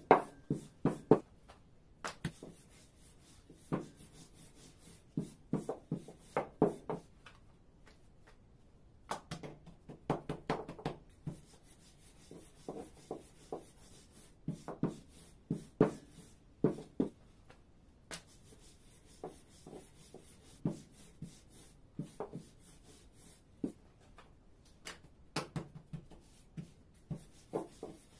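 Wooden rolling pin rolling out thin dough on a wooden tabletop: irregular clusters of short knocks and rubbing strokes, with brief pauses between runs.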